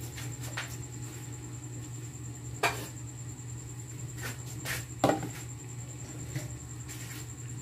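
Plastic bowls and a metal basin being handled and set down on a tiled kitchen counter: a few sharp knocks and clatters, the loudest about two and a half and five seconds in, over a steady low hum.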